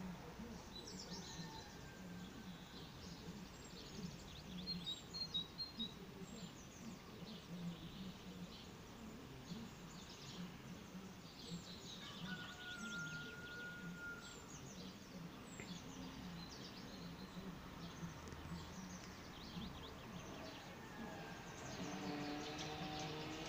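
Wild birds chirping and calling: many short, high chirps scattered throughout, with one steady whistled note about halfway. Near the end a lower pitched, voice-like call begins.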